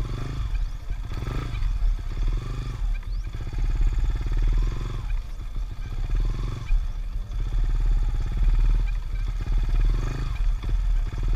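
Yamaha Sniper 150 motorcycle's modified single-cylinder four-stroke engine running at low speed over rough grass. The engine note swells and falls back every couple of seconds as the throttle is opened and eased off.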